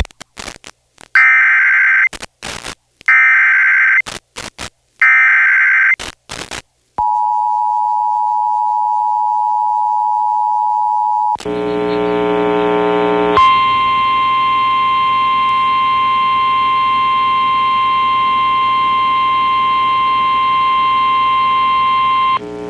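Emergency Alert System tones broadcast over FM radio. Three bursts of the SAME digital header, a shrill warbling data screech about a second each, are followed by the two-tone EAS attention signal held for about four seconds. Then comes a brief buzzy tone and a long steady single tone of about nine seconds, the NOAA Weather Radio warning alarm tone relayed before the severe thunderstorm warning message.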